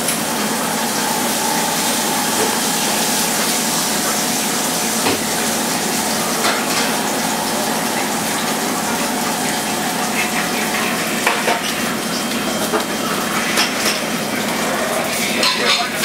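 Food sizzling in skillets on a gas range, a steady hiss, with occasional clinks and knocks of utensils and pans, more of them near the end.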